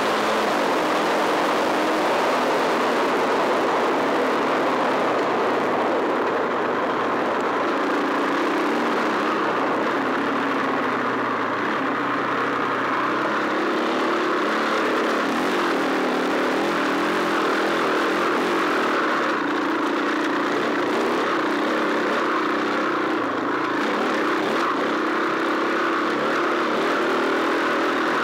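Off-road enduro motorcycle engine running hard without a break, its revs rising and falling as the rider accelerates and backs off.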